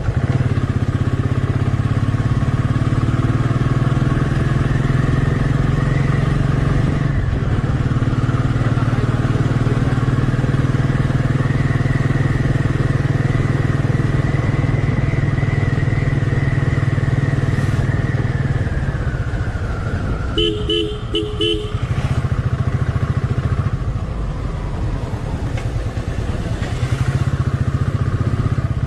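Motorcycle engine running at road speed, heard from the rider's seat, its pitch climbing and then easing off. About twenty seconds in, a horn gives about four quick short toots.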